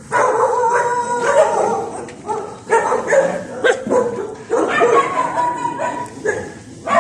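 Several dogs calling at once: long drawn-out whining cries near the start and again about five seconds in, broken by short yips and barks in between.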